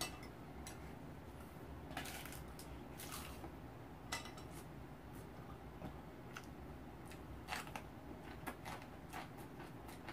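Faint table sounds of eating: a spoon and chopsticks clicking against a rice pot and bowls at scattered moments, with soft chewing.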